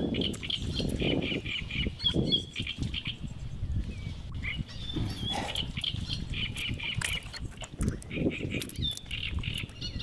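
Crucian carp and small carp flapping and splashing in a keepnet and a bucket of water as a hand handles them. A bird sings two runs of rapid, repeated high notes over it.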